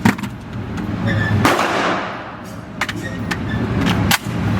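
Gunshots: a loud shot about a second and a half in that echoes and dies away over about a second, then several short sharp cracks near the three-second mark and at the end, over a steady low rumble.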